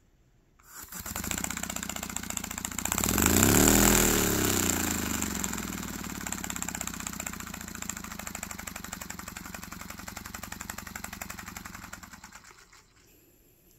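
Paper model single-cylinder air engine with a homemade exhaust, running on air fed through a pipe: a fast stream of exhaust puffs that starts about a second in, speeds up to a peak about four seconds in, then slows gradually and stops near the end. Something can be heard hitting the side of the crankcase, which the builder puts down to side-to-side play in the crank.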